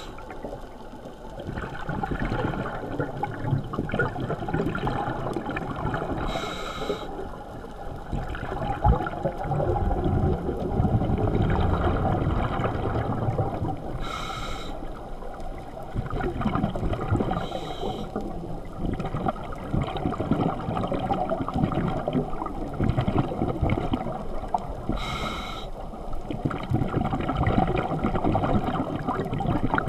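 Scuba diver breathing through a regulator, heard underwater: four short hissing inhales through the demand valve, with a low bubbling rumble of exhaled air between them.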